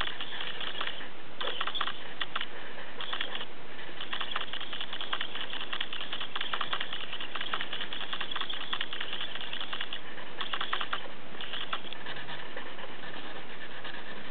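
A felt-tip marker scratching back and forth on paper as it colours in, in fast dense strokes with a few short breaks, stopping near the end.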